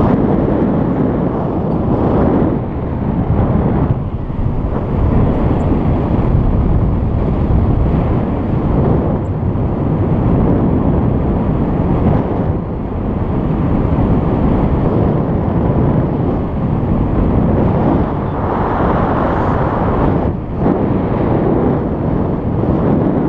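Wind rushing over a GoPro's microphone during a paraglider flight: a loud, low, gusty rumble that swells and dips every few seconds.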